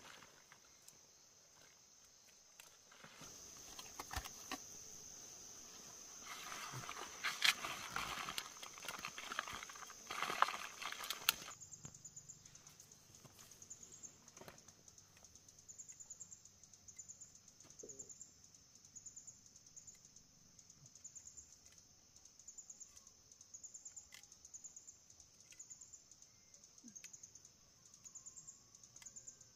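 Insects trilling steadily and high-pitched, joined in the second half by a rhythmic chirp about once a second. Before that, several seconds of rustling with a few sharp clicks and knocks, the loudest part.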